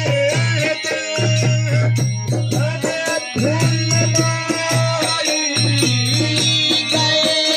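Indian devotional folk music: a harmonium playing with a singing voice, over rattling hand percussion. A low sustained note breaks off and comes back every couple of seconds.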